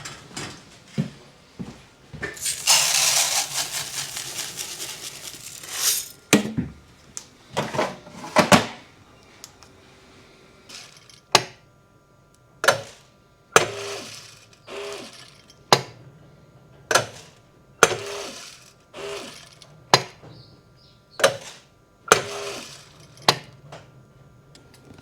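Grain moisture sample being run: a rush of grain being poured for a few seconds, then a series of sharp clicks and knocks, some with a short ringing tone, roughly once a second, as the moisture tester is handled.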